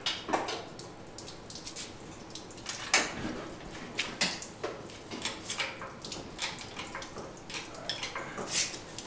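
Irregular metallic clinks and knocks from work freeing an engine from its bay. The loudest knock comes about three seconds in.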